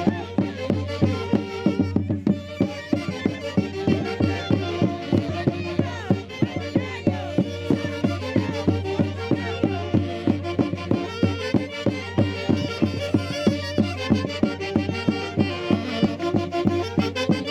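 Traditional Andean festival music from a Huancayo band playing a Santiago tune: melody instruments over a steady, evenly repeating beat.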